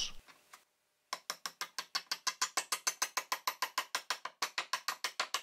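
Rapid, even mechanical clicking like a ratchet, about eight clicks a second, starting about a second in.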